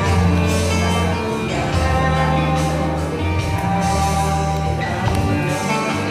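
Music with guitar over a bass line whose held notes change about once a second.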